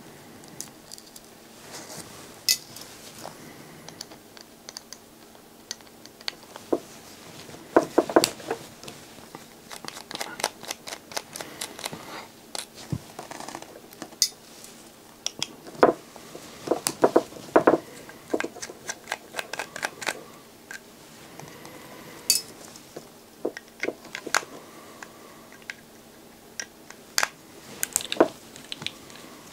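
Irregular light metallic clicks, taps and scrapes from an LNB's metal housing and thin tin shield cover being handled and worked off, with denser clusters of clicks about eight seconds in and again around sixteen to eighteen seconds.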